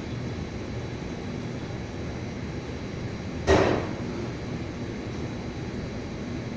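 A single sharp knock about halfway through, over a steady low hum.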